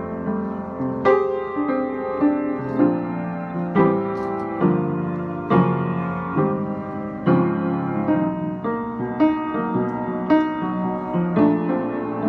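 Piano played at a slow, even pace, a new chord struck about once a second and left to ring into the next.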